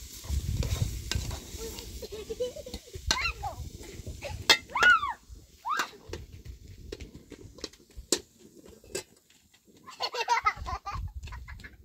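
A metal utensil stirring and scraping in a cooking pot over an open fire, with a few sharp clinks against the pot. A few short, high animal calls come through about halfway, and a child's voice near the end.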